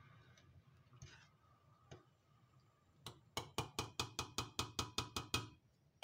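A spoon tapped rapidly against the rim of a stainless steel saucepan, about six ringing clinks a second for some two and a half seconds, after a few faint knocks of stirring.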